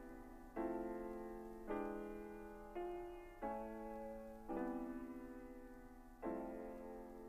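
Slow, soft background piano music: sustained chords struck about once a second, each fading away before the next.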